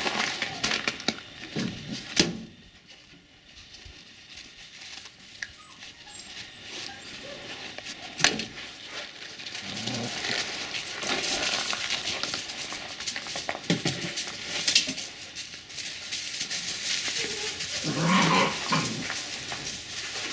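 Puppies giving short whines and yips at intervals, the loudest call near the end, among scattered small knocks and scuffling.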